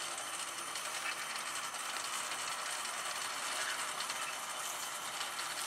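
Steady mechanical grinding and running noise from a winch pulling a car stuck in a mud hole.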